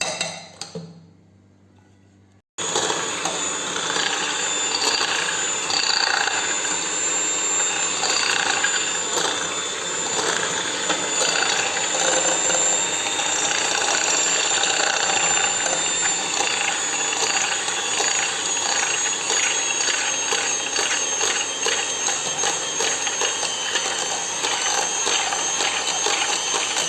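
Electric mixer switched on about two and a half seconds in, running steadily with a high whine as it whips cream mixed with whipped-cream powder until it thickens and turns light.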